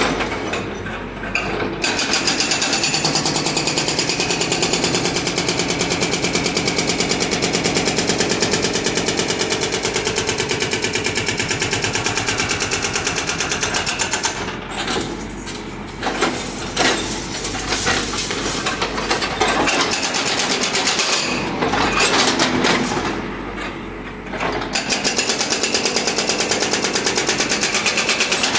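Hydraulic breaker on a Cat backhoe loader's arm hammering brick and concrete masonry in a rapid, steady run of blows. It stops briefly a few times and starts again.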